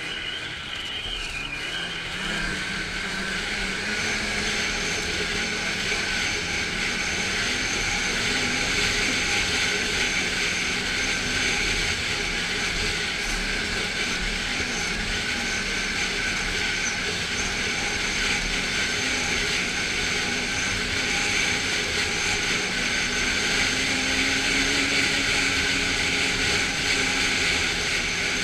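Snowmobile engine and track running steadily under the rider, getting louder over the first several seconds as it pulls along, then holding an even drone.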